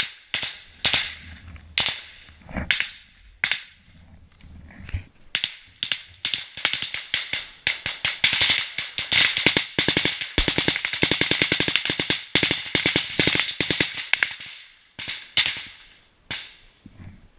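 Close small-arms fire in a firefight: rapid shots and bursts, several a second, sparse at first, then dense through the middle, thinning out near the end.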